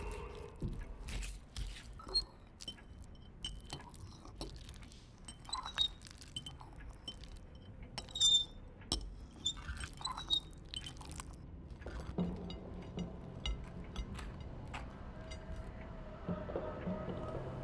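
Metal fork clinking and scraping against a bowl while mashing avocado: a long irregular run of sharp clinks, some with a brief ringing tone. Near the end, fewer and quieter knocks.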